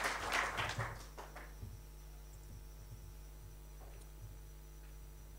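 Audience applause fading out over the first second and a half, leaving a quiet room with a steady low electrical hum and a few faint knocks.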